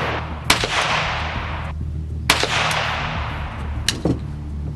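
Three gunshots, roughly a second and a half to two seconds apart, each with a long echoing decay, over a steady low hum.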